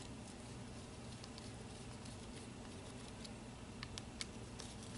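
Faint small clicks and ticks of a hex driver turning the motor-plate bolts into an RC crawler transmission case, with a couple of sharper clicks about four seconds in, over a low steady background hum.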